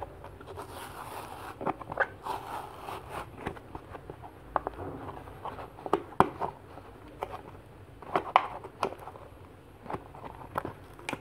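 Plastic toy packaging being handled: crinkling and rustling with scattered sharp clicks and taps.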